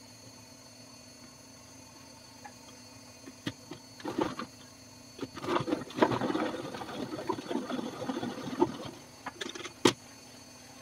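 Hand-crank food chopper turning its blades through onion in a plastic bowl: a few short turns about four seconds in, then a longer stretch of fast, rattling cranking, and one sharp click near the end.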